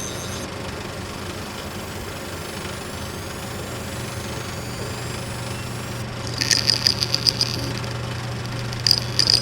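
Seagate Exos X18 16TB helium hard drive powering up: a steady hum with a faint rising whine as the platters spin up, then quick runs of light ticking about six seconds in and again near the end. The spin-up is smooth and free of knocking or grinding, a healthy-sounding start even though the drive cannot read its data, which points to one or more weakened heads.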